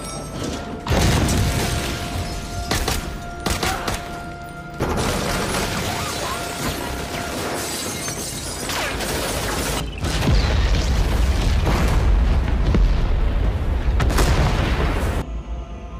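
Action trailer sound mix: music under explosive booms, hard impacts and shattering glass. It builds to its loudest, heaviest stretch in the last few seconds, then cuts off abruptly just before the end.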